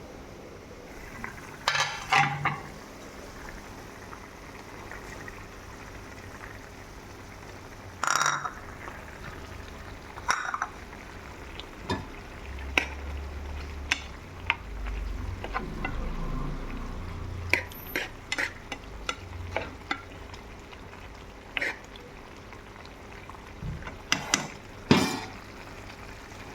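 Food frying in a pan with a steady sizzle while it is stirred, the utensil knocking and scraping against the pan a dozen or so times.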